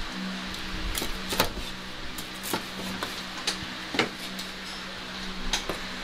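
Chef's knife knocking on a wooden cutting board at irregular intervals as grilled jerk pork is chopped, over a steady low hum.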